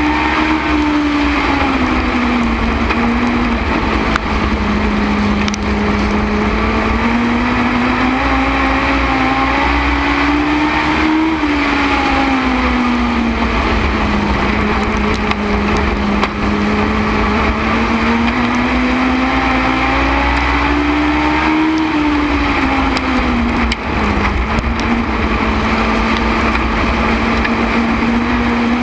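Onboard sound of a Legends race car's Yamaha 1200 cc four-cylinder motorcycle engine at racing speed. Its pitch climbs along each straightaway and drops off into each turn, about every ten seconds.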